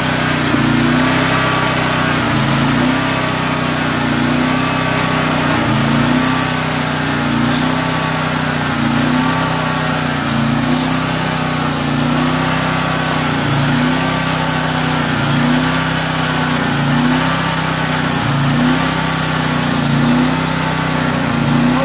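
Engine of a portable bandsaw sawmill running steadily, its pitch dipping and recovering in a regular cycle about every second and a half.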